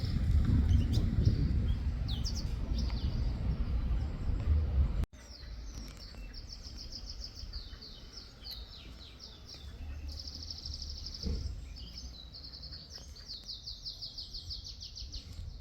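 Small songbirds singing, with quick repeated high chirps and rapid trills. A low rumble on the microphone sits under the first five seconds and drops away abruptly at a break, after which the birdsong continues more clearly.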